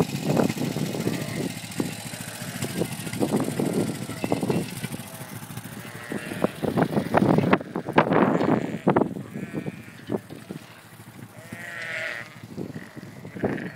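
Sheep bleating, several calls, over the low running of a Honda quad bike's engine, with irregular low thumps and rumbles throughout.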